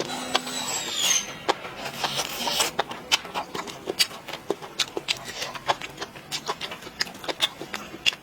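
Close-miked eating sounds: chewing and lip-smacking, with many sharp wet clicks coming several times a second at an uneven pace.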